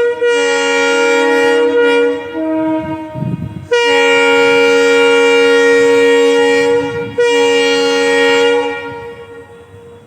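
WDP 4D diesel-electric locomotive's multi-tone air horn sounding in several blasts. The longest lasts about three seconds, and the sound dies away near the end.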